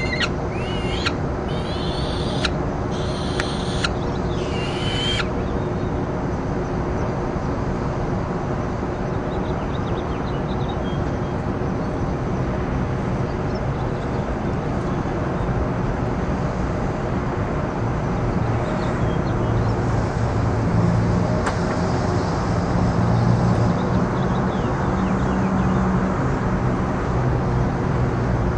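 About five shrill bird calls at the nest, roughly one a second, in the first five seconds. Then steady traffic noise, with a low rumble growing louder in the last ten seconds.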